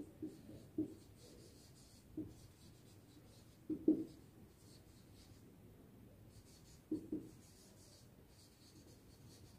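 Marker pen writing on a whiteboard: runs of faint, high scratchy squeaks as each word is written, with a few soft thumps in between, the loudest about four seconds in.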